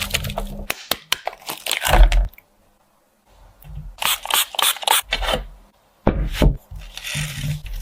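Short bursts of crunching, tearing and scraping while food is being prepared, cut off abruptly twice by dead silence.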